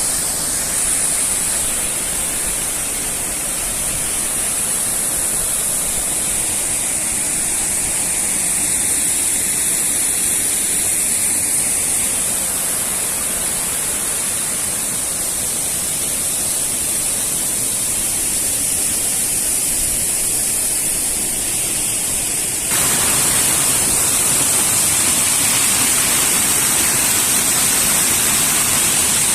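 Waterfall rushing in a steady hiss. About three quarters of the way through it suddenly becomes louder and fuller.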